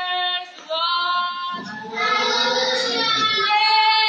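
A high voice singing long held notes that step from one pitch to another, with a lower, rougher sound joining underneath from about a third of the way in.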